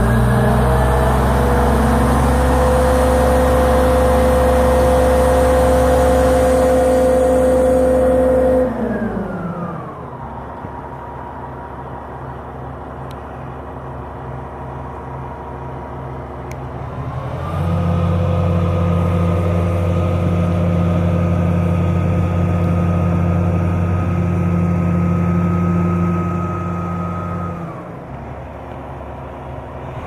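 Truck-mounted hydraulic crane's diesel engine revving up and holding steady high revs for about eight seconds, dropping back to idle, then revving up and holding again for about ten seconds before falling back. The raised revs drive the crane's hydraulics as it hoists or lowers a load.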